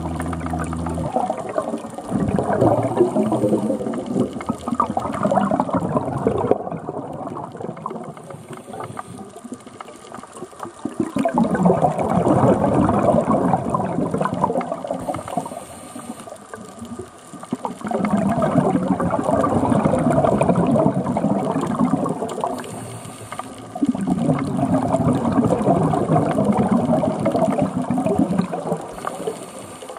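Scuba regulator breathing heard underwater: exhaled bubbles burble in four long bursts of several seconds each, with quieter gaps and a brief faint hiss of inhalation between them.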